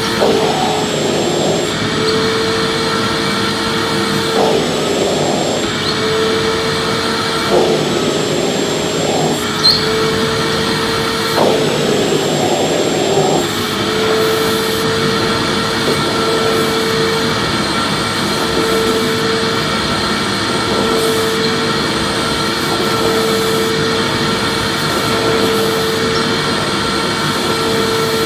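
Electric vacuum cleaner running continuously: a steady rushing airflow with a constant motor whine, swelling briefly a few times in the first half.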